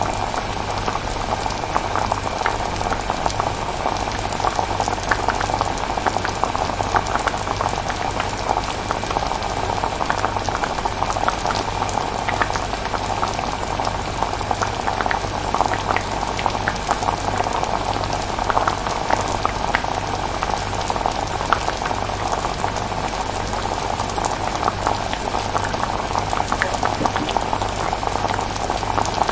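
Pot of chilli simmering: thick sauce bubbling steadily with many small pops, over a low steady hum.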